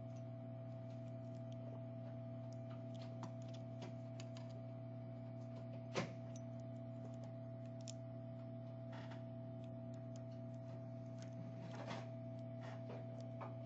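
Small scattered clicks and taps of hand tools on a replacement charging port and phone circuit board as the port is seated, over a steady electrical hum. One sharper click about six seconds in.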